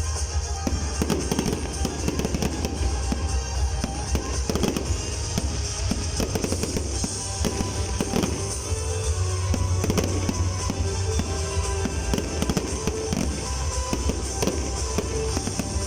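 Fireworks display: rapid, irregular bangs and crackles of bursting shells, one after another with no pause, over a deep steady rumble, with music playing along.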